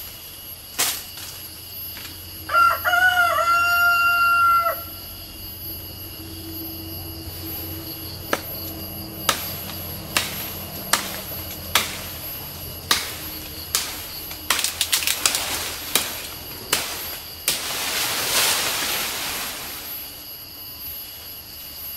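A rooster crows once, a held call about two seconds long, a few seconds in. After that come sharp chopping strikes of a long-bladed knife on lychee branches, irregular and about one a second, with a quick flurry of blows near the middle.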